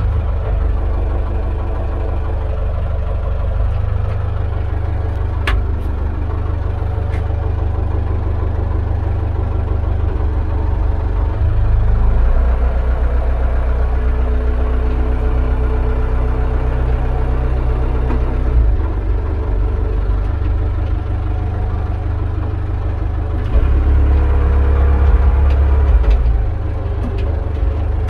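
Manitou MLT 626 telehandler's diesel engine running steadily, rising in level twice: for about six seconds near the middle and for a couple of seconds near the end. A single sharp click about five seconds in.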